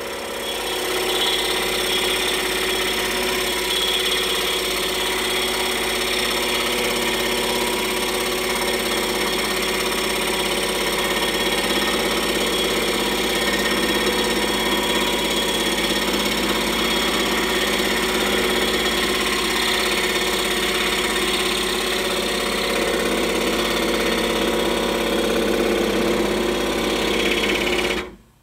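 Scroll saw running steadily, its reciprocating blade cutting slowly through a hard maple blank an inch and a half thick. The sound briefly drops out near the end.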